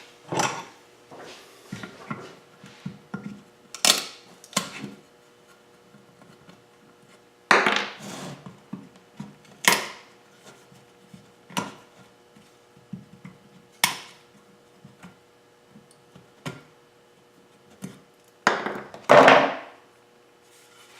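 Sharp knocks on wood, about ten of them at irregular intervals, as drilled-out wooden plugs are knocked free of freshly drilled holes in a wooden block; the loudest is a longer clatter near the end. A faint steady hum sits underneath.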